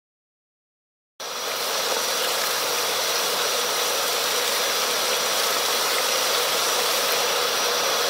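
Wet-and-dry vacuum running steadily, its hose sucking out the waterfall's reservoir basin. The motor's rush and a steady high whine cut in abruptly about a second in.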